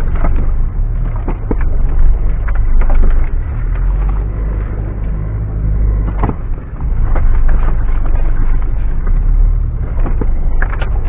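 Mitsubishi Pajero driven over rough off-road ground: a steady low engine rumble with frequent knocks and clatters, the loudest about six seconds in.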